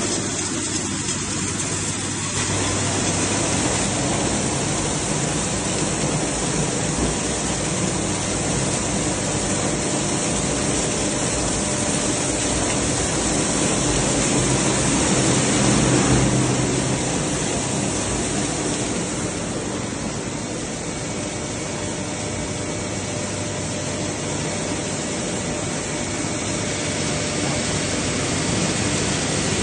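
Industrial plastic shredder (Netplasmak Shredder-1200) running and grinding PVC scrap: a loud, steady rush of noise over a low machine hum, loudest a little past the middle.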